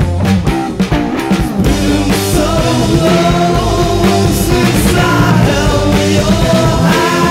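Rock music with a singing voice over a steady band backing.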